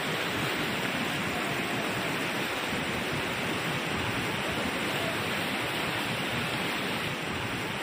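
Fast-flowing floodwater rushing across a road: a steady, even sound of rushing water.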